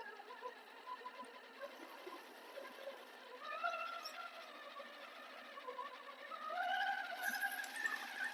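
Electric motor and gear drive of a Redcat Scout RC crawler whining under throttle, the pitch wavering up and down as the throttle changes. It grows louder about six and a half seconds in.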